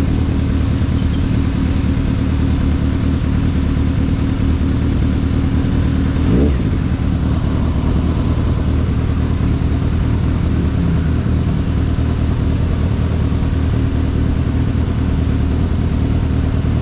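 Kawasaki ZX-6R's inline-four engine running steadily while riding, under a steady rush of noise, with one quick rise in pitch about six seconds in.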